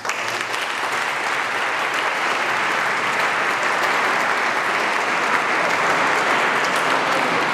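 Audience applauding, a dense, steady patter of many hands clapping that breaks out suddenly, with the long reverberation of a large concrete church.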